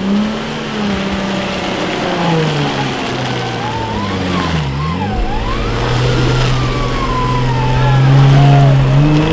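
Off-road Jeep engine revving under load on a muddy climb, its pitch rising and falling, dipping sharply about halfway, then holding steadier and growing louder near the end.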